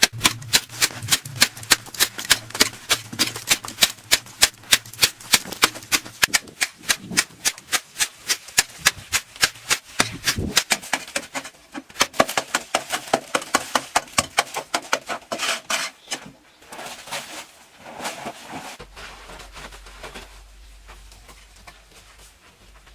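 Close-up crunching of someone chewing crisp, crunchy food, a rapid run of sharp crunches about four to five a second that slows and fades over the last several seconds.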